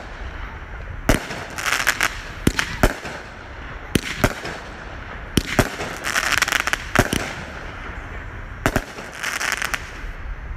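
Aerial fireworks bursting: about ten sharp bangs at uneven intervals, with stretches of crackle about 2, 6 and 9 seconds in.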